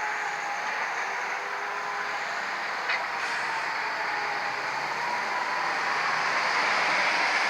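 Steady outdoor road-traffic noise that grows a little louder near the end, with the faint tone of a distant Hörmann ECN siren wavering slowly in pitch beneath it during its test, and a single click about three seconds in.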